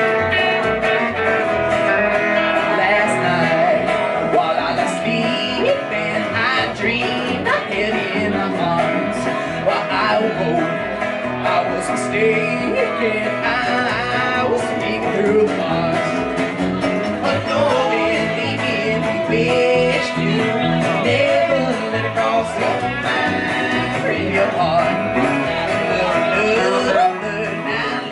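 Live country band playing, with electric guitar, upright double bass and acoustic guitar, and a voice singing at times.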